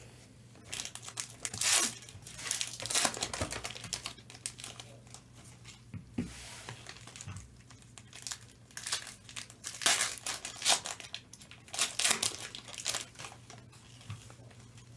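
Foil trading-card pack wrappers being torn open and crinkled by hand, in irregular bursts.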